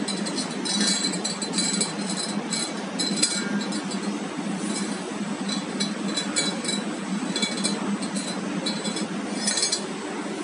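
Workshop machinery noise: a steady low hum with many short, irregular high-pitched hissing bursts.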